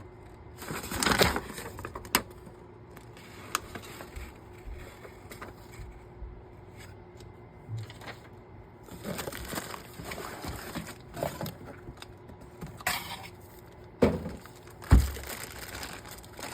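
Scattered knocks, clicks and rustling of packaging as a small fume extractor is unpacked and handled, with a few louder thumps near the end.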